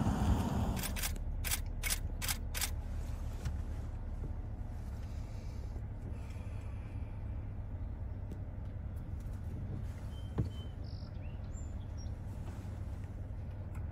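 Steady low outdoor rumble, with a quick run of five camera shutter clicks about a second in and a few faint bird chirps about ten seconds in.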